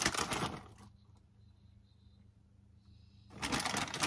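Plastic bag of grated cheese crinkling and rustling as a hand reaches into it for cheese, in the first second and again near the end. A faint low steady hum lies under the quiet stretch between.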